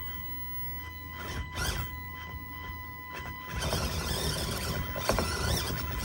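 Axial AX24 micro crawler's small electric motor and geared drivetrain whining as it crawls up a steep slope under load, turning louder and rougher about three and a half seconds in.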